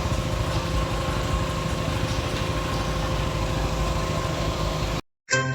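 A motor engine idling steadily, cut off suddenly near the end, followed briefly by the start of jingly music.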